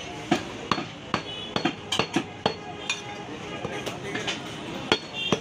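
Heavy butcher's knife chopping beef against a wooden chopping block: an irregular run of about a dozen sharp knocks.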